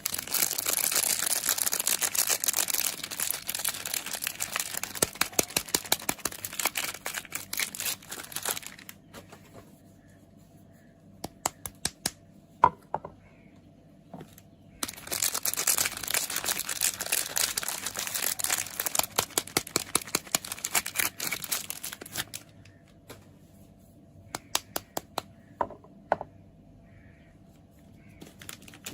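Soap packaging being crinkled and unwrapped by hand in two long crackly stretches, with a few light taps and clicks in the pause between them and again near the end.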